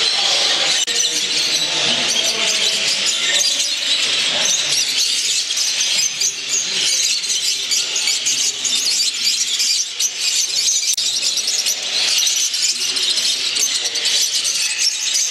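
A large chorus of small caged birds chirping and twittering together: many overlapping high chirps with no pause.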